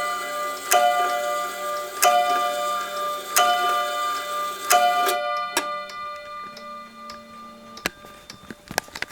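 Automaton wall clock striking the hour on its gong bars: one ringing strike about every 1.3 s, four or five in a row, stopping about five seconds in. Afterwards the clock ticks faintly, with a few sharp clicks from the mechanism.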